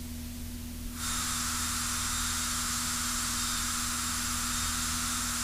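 Aircraft radio and intercom feed with no one talking: a steady low hum from the propeller aircraft, joined about a second in by an even radio hiss that holds steady.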